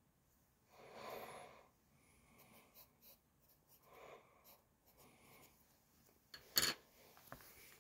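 Graphite pencil scratching on sketchbook paper in short, faint strokes as a date is written. A single sharp click comes near the end.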